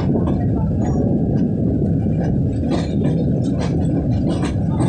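Train running across a steel bridge, heard from an open coach doorway: a steady loud low rumble of wheels on rails, with a few sharp clicks scattered through.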